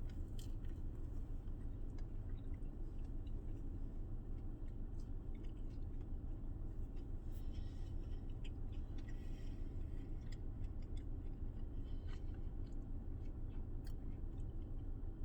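A person biting into and chewing a bacon breakfast crunchwrap, with scattered faint crunches, over a steady low hum.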